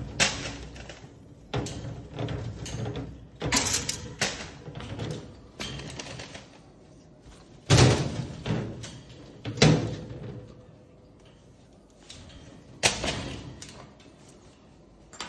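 Irregular knocking and rattling in a wire birdcage as a Moluccan cockatoo scrambles and flaps inside, with quieter rustling between. There are three sharp, louder knocks: two a couple of seconds apart around the middle, and one a few seconds later.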